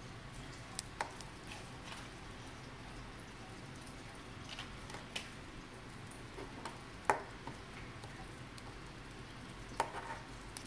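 Scattered light clicks and taps from a Timex Classic Digital watch being handled: its stainless steel expansion band clinking and the watch knocking against a wooden table. About eight taps, the sharpest about seven seconds in and two more close together near the end.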